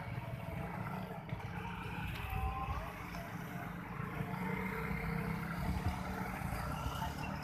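Motorcycles riding past across the level crossing, their small engines running as a steady low hum of road traffic.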